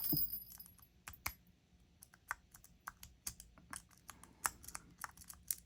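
Lock picks working the pins inside a mini padlock: a quick knock, then irregular light clicks and ticks, several a second.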